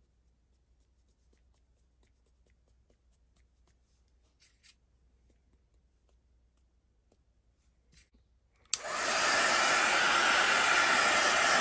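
A few faint taps, then about nine seconds in a handheld electric dryer switches on suddenly and runs with a loud, steady blowing noise, drying the wet watercolour paint.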